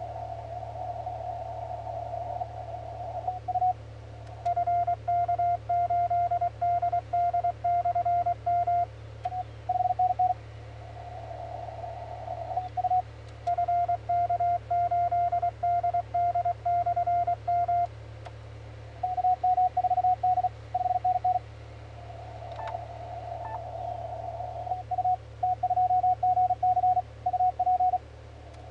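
Morse code (CW) from a ham radio transceiver, a single tone keyed on and off. Stretches of a weaker signal in receiver hiss, the other station heard, alternate with stretches of a loud, clean keyed tone, which is the operator's own transmission sent from the keyer and heard as sidetone. There is a low hum underneath.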